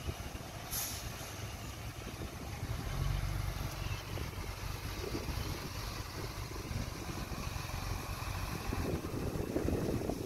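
Heavy machine's diesel engine running with a steady low rumble that gets louder about three seconds in, and a brief hiss just under a second in.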